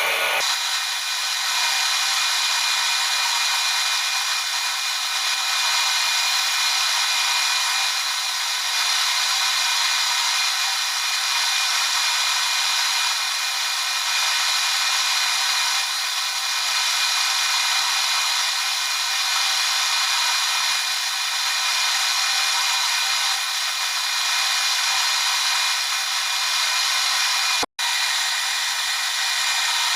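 Small metalworking lathe running steadily while turning brass bar stock down, a continuous high whir and hiss, broken by a momentary dropout near the end.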